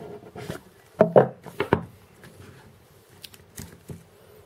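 Hands handling a cardboard presentation box and its insert as it is opened: a scattering of short taps and clicks, busiest in the first two seconds, with quieter gaps between.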